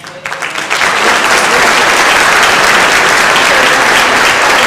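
Audience applauding: the clapping builds over the first second, then holds steady and loud.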